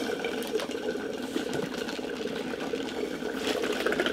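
Drinks being slurped through plastic straws from fast-food cups: a continuous gurgling slurp.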